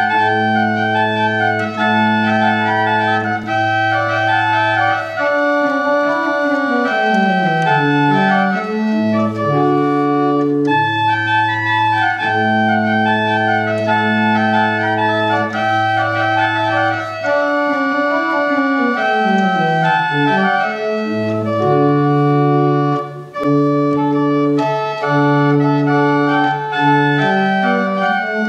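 Church pipe organ playing sustained chords over long held bass notes, with stepwise falling lines in the lower voices twice.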